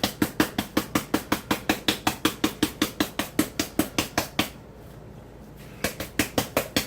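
Red pepper flakes being shaken from a spice container into the pot: rapid, even taps or rattles, about six a second, stopping for about a second past the middle and then starting again.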